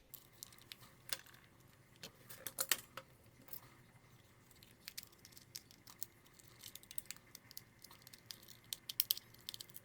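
Light clicks and small taps of a plastic gamepad and small tools being handled while the gamepad is taken apart, with a louder cluster of clicks about two and a half seconds in and again near the end.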